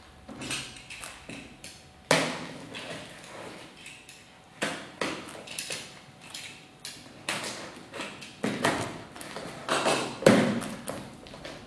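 A cardboard box being opened: a utility knife cuts through the packing tape and the flaps are pulled open, making a string of irregular sharp rips, scrapes and knocks, the loudest near the end.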